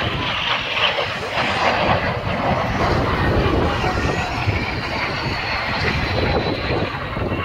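Jet engines of the Patrulla Águila's CASA C-101 Aviojet trainers as the formation flies its display, a steady loud jet noise. A faint high whine slides slowly downward in the second half as the aircraft pass.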